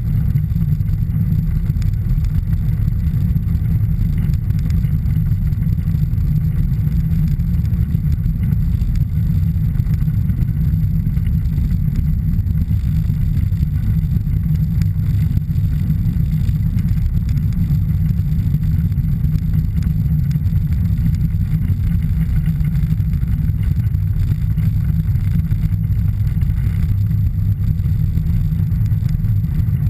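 Piper PA-28-161 Warrior III's Lycoming O-320 flat-four engine running steadily at low power while taxiing, a low, even engine sound heard from inside the cabin.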